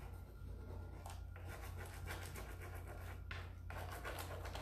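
Applicator tool rubbing a decor transfer down onto grooved wood: a run of scratchy rubbing strokes, with short breaks about a second in and a little after three seconds. A steady low hum runs underneath.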